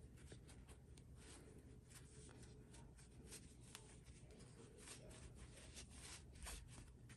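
Faint, scattered rustling of cotton fabric being handled by fingers, as a small sewn bow-tie tube is turned right side out, over a quiet room hum.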